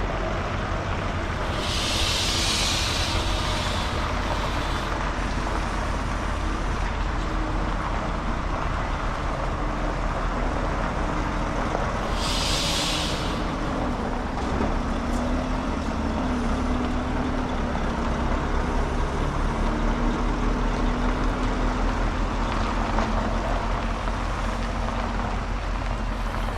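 Tractor-trailer truck's diesel engine running as the truck arrives, its pitch shifting partway through, with short air-brake hisses about two seconds in and again near halfway.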